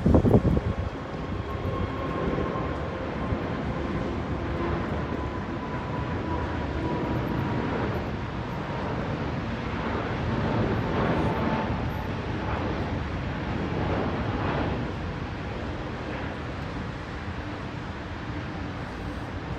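Jet airliner engines running, a steady rush with a faint high whine that slowly falls in pitch, swelling louder for a few seconds past the middle. A loud thump comes right at the start.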